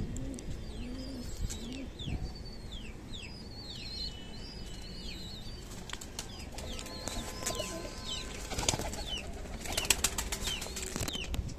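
Domestic pigeons at their loft: a pigeon cooing in the first second or two, repeated short high chirps throughout, and a flurry of wing flapping and clatter about nine to eleven seconds in.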